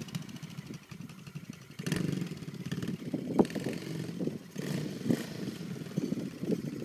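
Kawasaki KLX110 dirt bike's small single-cylinder four-stroke engine running as it is ridden around, revving up and easing off several times. A single sharp click sounds about three and a half seconds in.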